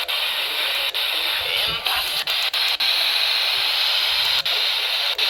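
Loud static hiss from a NOAA Weather Radio receiver as the station's signal breaks up partway through a computer-voiced alert, cut by brief sharp dropouts every half second or so. It is the sign of the transmitter, WXM42, going down.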